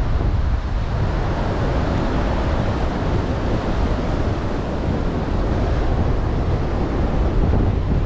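Ocean surf washing up the beach, mixed with wind buffeting the microphone as a steady low rumble.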